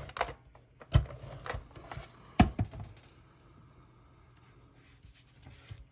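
Paper pieces being glued and pressed down onto a scrapbook page: a handful of sharp light taps and clicks with paper rustling in the first half, then quieter handling.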